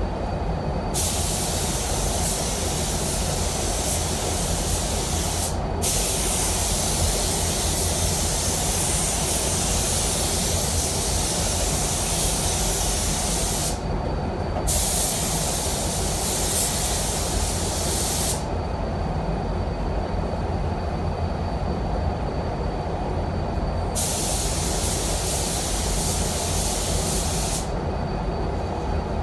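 DeVilbiss Tekna ProLite paint spray gun hissing as the trigger is pulled, spraying waterborne basecoat at about 18 psi. There are four stretches of spraying, of roughly four to eight seconds each, with short pauses between them. Under the spraying runs a steady low rumble.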